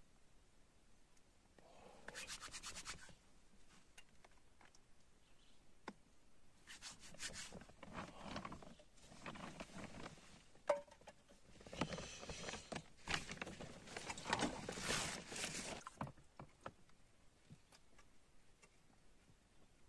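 Intermittent rubbing and scraping as camp gear is handled beside a small camp stove, in several bursts that are longest and loudest in the middle, then only a few light clicks near the end.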